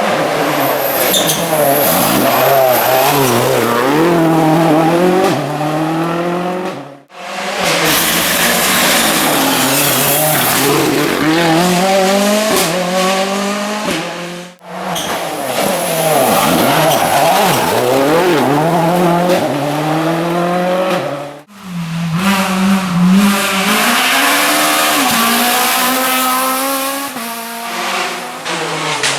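Rally car engines revving hard and climbing through the gears, pitch rising and dropping back at each shift, in four short passes cut together.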